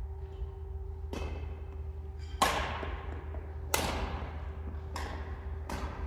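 Badminton rally: rackets striking a shuttlecock five times, about one hit every second and a bit, the second hit the hardest, over a steady hum.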